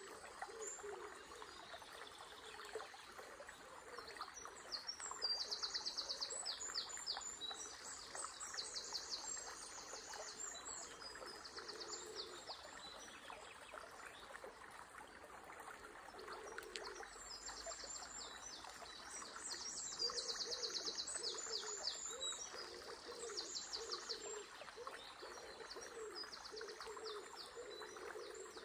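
River water running steadily while songbirds sing in bursts of fast, high trilled notes, with a lower repeated call underneath.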